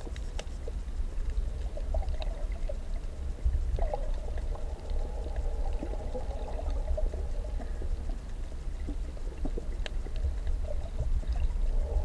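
Muffled water noise recorded underwater: a steady low rumble of moving water with a hazy mid-pitched hiss and scattered faint clicks and crackles.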